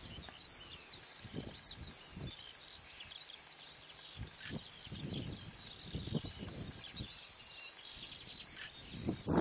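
Small birds chirping and calling in open countryside, many short high chirps and sweeps, with brief low rumbles breaking in every second or so.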